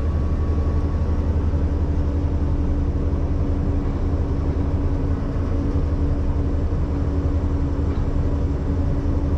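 Ponsse Buffalo forwarder's diesel engine and crane hydraulics running steadily while the loader crane swings, heard from inside the cab as a low, even drone with a steady hum above it.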